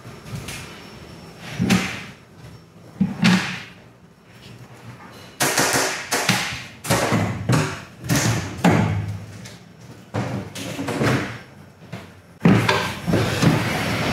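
Hollow thumps, knocks and scuffing inside a fibreglass catamaran hull: footsteps on the hull floor and a foam board being handled and pressed into place. A few single knocks come first, then from about five seconds in a busy run of knocks and scrapes.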